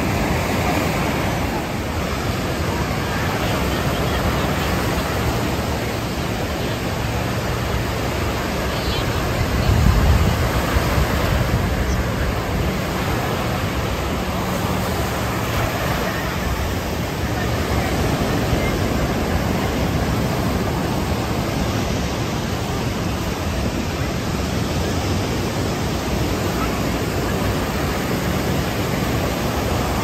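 Ocean surf breaking and washing up the shore: a steady rush of noise, with a brief low rumble about ten seconds in.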